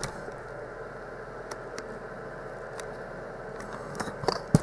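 Light clicks and taps of plastic LEGO pieces being handled over a steady faint room hum, with a sharper knock near the end.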